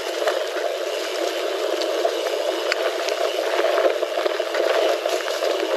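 Mountain bike riding along a woodland trail: a steady rushing noise of wind and rolling tyres on the microphone, with frequent small clicks and rattles from the bike and the trail surface.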